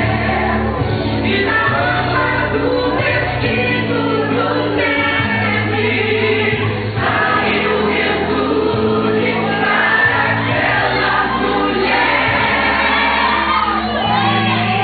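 Gospel song with choir singing over instrumental backing.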